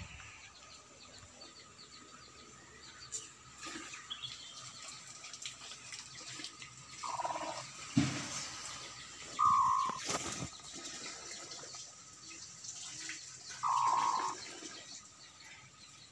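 Hens in a wire pen giving three short calls, each about half a second. A sharp thump about eight seconds in and a knock about two seconds later.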